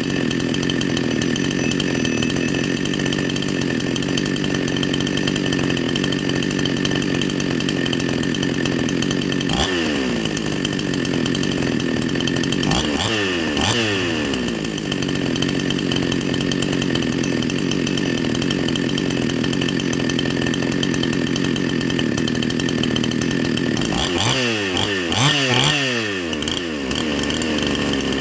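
A 52cc Chinese two-stroke chainsaw fitted with a 62cc crankshaft running at high revs. Its pitch drops briefly and recovers about ten seconds in, again a few seconds later, and twice more near the end.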